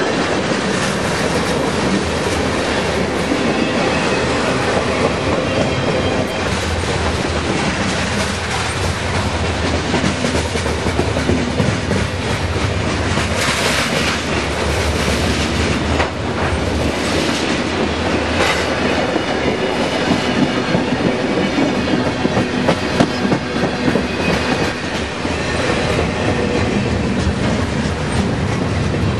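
Freight cars of a long freight train rolling past at close range, their steel wheels clattering steadily over the rails. The sound is loud and continuous.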